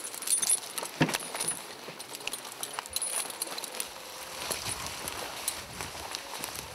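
Metal chains and snaps on cable dog leads jingling and clinking as they are handled and carried, then footsteps rustling through dry leaf litter from about four seconds in.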